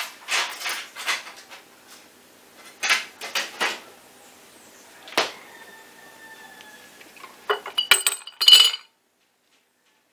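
Glassware and kitchen utensils being handled on a counter: a series of separate clinks and knocks, a sharp knock about five seconds in, and a busier clatter near the end that cuts off abruptly.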